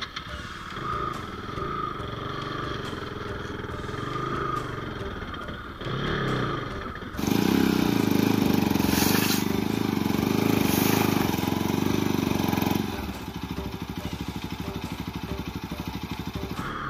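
Motorcycle engine running on a rough trail, getting much louder for about five seconds in the middle, then settling into a steady, evenly pulsing run at low speed.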